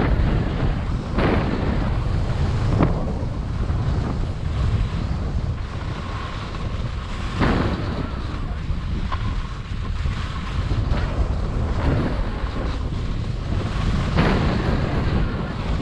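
Wind buffeting the microphone during a ski run, a steady low rumble. Over it, skis hiss and scrape across the snow in brief rushes a few seconds apart, as the skier carves turns.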